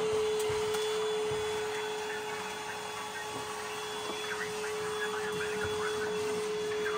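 A small electric motor running steadily, with rushing air and one constant whine held at the same pitch throughout.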